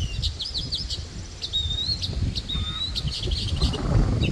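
Small birds chirping and whistling: a quick run of high chirps at the start, then two short whistled notes about a second apart, over a low outdoor rumble.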